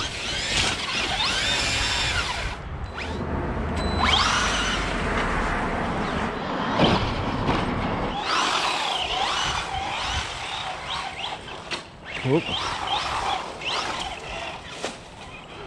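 RC rally car's motor whining, rising and falling in pitch again and again as the car speeds up and slows down.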